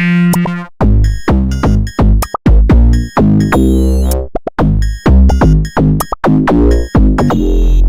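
Loud electronic music: short, quickly changing synthesizer notes over a heavy bass beat, with a wavering high tone about four seconds in.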